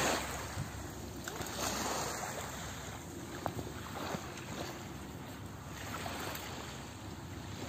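Small sea waves washing up over wet sand at the shoreline: a steady hiss of surf that swells and fades gently.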